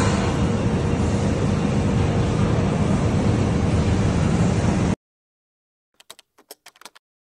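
Loud, steady industrial noise from a robotic welding cell on a shop floor, which cuts off abruptly about five seconds in. A quick run of keyboard-typing clicks follows about a second later.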